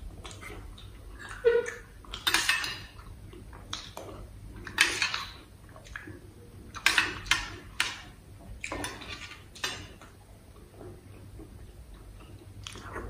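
Steel spoon clinking and scraping against stainless-steel bowls and a steel thali, mixed with close-up mouth sounds of eating off the spoon. The sounds come as a string of separate clinks and short wet smacks, fewer in the last few seconds.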